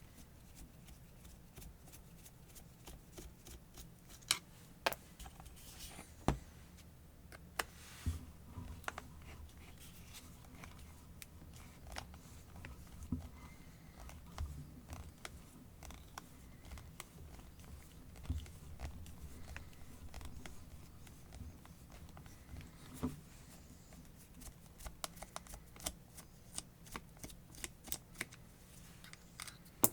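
Scattered clicks and light knocks of hand tools and small parts being handled while an angle grinder is disassembled, over a faint steady low hum.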